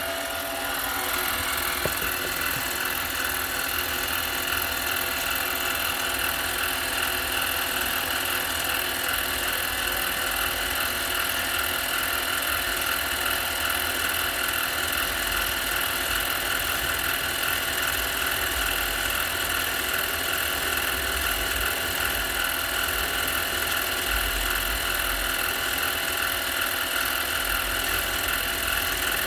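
Harbor Freight mini lathe running steadily, its motor and gears giving a whine of several steady tones, while a tool cuts the inside of a hub-centric ring.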